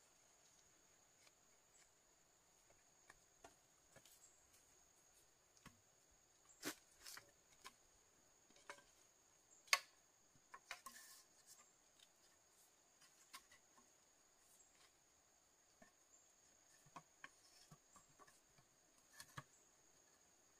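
Near silence broken by scattered faint clicks and taps, the sharpest about ten seconds in, over a steady high-pitched hum.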